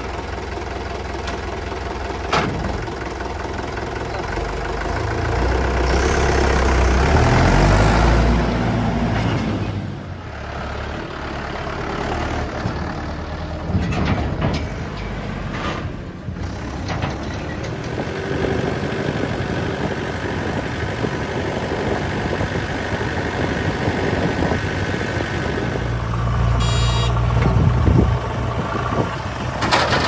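Diesel tractor engines running and revving, swelling to their loudest about a quarter of the way through.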